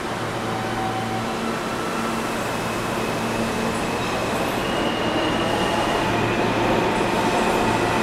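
New York City subway train running past through the station, a continuous rumble of steel wheels on rail that grows louder, with a faint high whine of wheel squeal over it.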